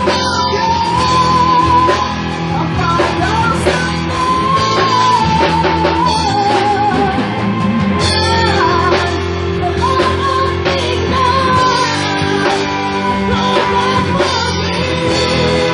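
Live rock band playing: drums, bass and electric guitar under a wavering lead melody line, loud and unbroken.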